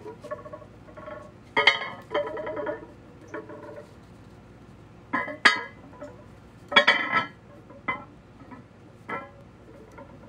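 Cast iron weight plates clinking against each other as they are gripped and lifted in a plate pinch: a series of sharp metallic clinks with a short ring, loudest about a second and a half in, around five and a half seconds and around seven seconds.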